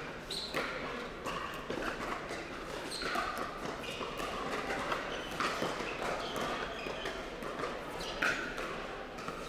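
Pickleball rally: paddles hitting the plastic ball in an irregular run of sharp knocks, with a few short squeaks and a low murmur of voices underneath.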